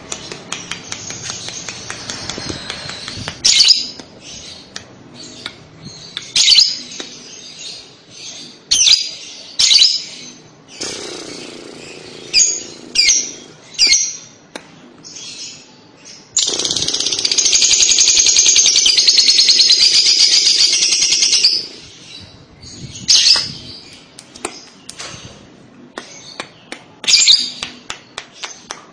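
Fischer's lovebird calling: sharp chirps and short squawks, then a long, loud rapid rattling trill of about five seconds in the middle (the 'kekekan' or ngekek song used to prompt young lovebirds to sing), followed by more chirps.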